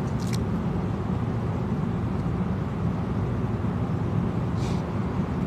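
Steady low rumble of background noise, with two brief faint rustles, one just after the start and one near the end.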